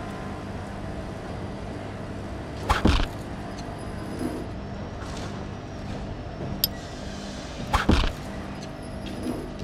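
Two metal clanks about five seconds apart, each a quick double knock, over a steady low hum: added sound effects of a round metal valve-chamber cover being lifted off with a hook and set aside.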